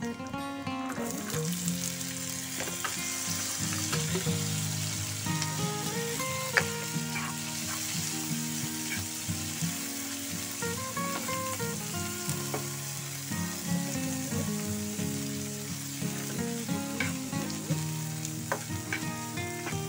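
Chinese sausage, dried shrimp and scallops sizzling steadily in hot oil in a pan, the sizzle coming up about a second in. Background music with a simple tune plays underneath.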